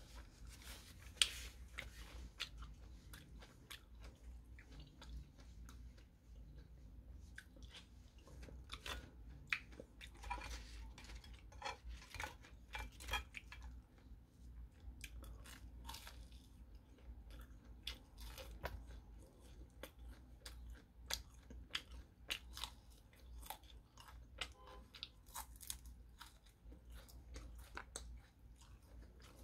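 A person chewing and biting battered fried king prawns: faint, irregular crisp crunches and mouth sounds.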